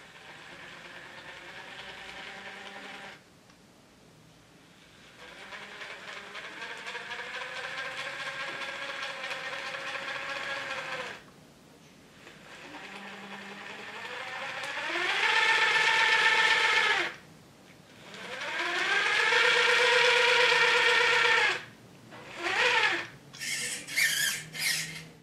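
RC crawler chassis's electric motor and gear train whining as it drives, in several throttle runs with pauses between them: the whine climbs in pitch as the chassis speeds up, holds steady, then drops away. Near the end come a few short, quick throttle blips.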